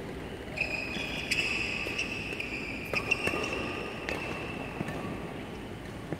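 Badminton rally: several sharp racket hits on the shuttlecock, spread about a second apart, with high squeaks of court shoes on the floor through the first two-thirds.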